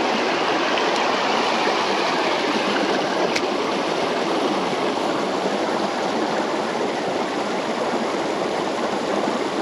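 Creek water rushing, a loud steady noise.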